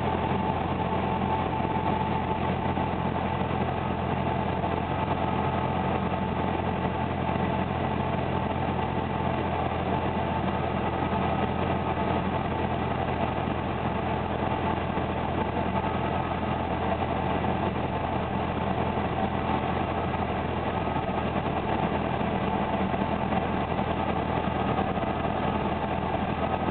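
Cessna 172's piston engine and propeller running at a steady drone, heard from inside the cockpit, with no change in power while the plane descends on final approach.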